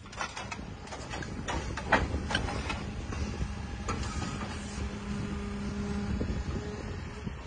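CAESAR self-propelled howitzer's truck engine running with a steady low rumble, joined by a steady hum from about three seconds in. Several sharp knocks come in the first four seconds, the loudest about two seconds in, as the crew works the gun.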